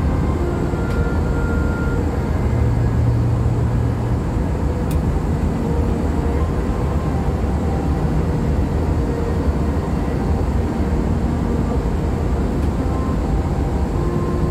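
Steady low cabin roar of an Airbus A321-211 airliner in flight, the engine and airflow noise heard from a window seat inside the cabin.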